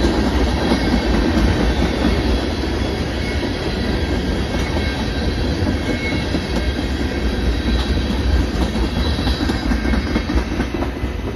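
Freight train of tank cars and covered hopper cars rolling past, a steady rumble of steel wheels on rail with fine clicking over the track and a faint high squeal now and then.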